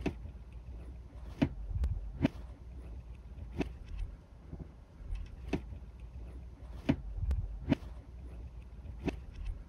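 About ten sharp clicks or taps at uneven spacing, roughly one a second, over a low rumble.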